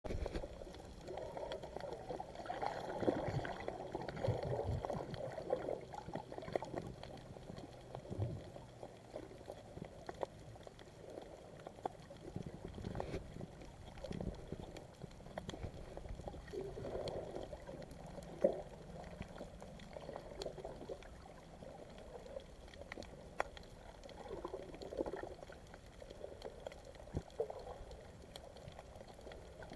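Muffled water sloshing and gurgling, picked up by a camera held underwater, with scattered sharp clicks.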